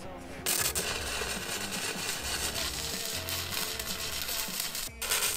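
Stick-welding arc crackling and hissing steadily for about four and a half seconds. It breaks off briefly near the end and is struck again. Background music plays under it.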